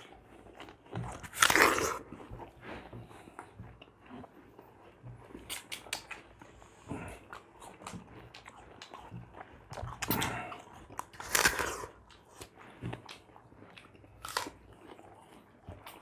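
People biting into and chewing ripe Rupali mangoes close to the microphone, in scattered short bites and smacks, loudest about a second and a half in and again about two-thirds through.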